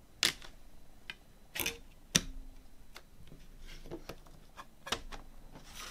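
Clicks and taps of a plastic CD jewel case being handled as the disc and booklet are put back into it. There are about eight sharp clicks spread unevenly, the loudest a little over two seconds in.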